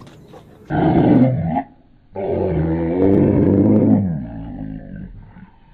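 Chihuahua growling and snarling in two bouts: a short growl about a second in, then a longer one of about two seconds that trails off.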